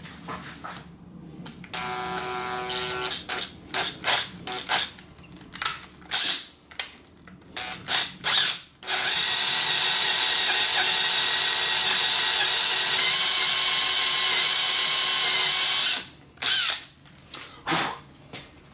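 Electric drill boring into an aluminum part. It gives a series of short trigger pulses, then a steady run of about seven seconds, then two more short pulses near the end.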